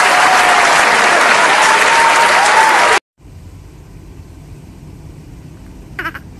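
Audience applauding loudly, with a wavering whistle-like tone above the clapping. The applause cuts off abruptly about three seconds in, leaving a low steady background hiss.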